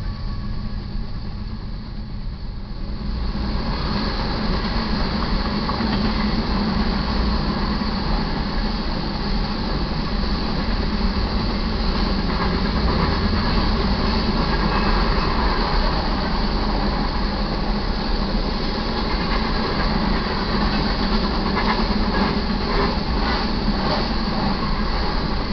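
Freight train passing close by: the last of its GE diesel locomotives, then a long string of covered hopper cars rolling past with a steady rumble of steel wheels on rail. A run of wheel clicks over rail joints comes near the end.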